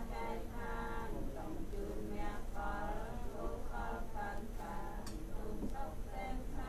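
Voices chanting in a sing-song way, some notes held, with a sharp click about five seconds in.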